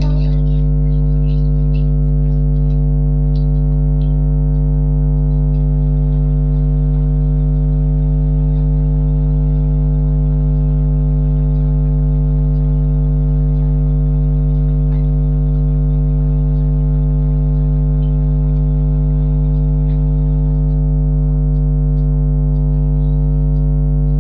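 Loud, steady electrical hum with a buzzy stack of overtones, unchanging throughout.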